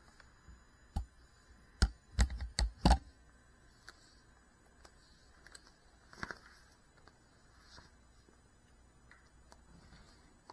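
Handling noise on a drone-mounted action camera: a quick run of sharp clicks and knocks about two to three seconds in, then a few faint ticks over a low electronic hiss as it sits still.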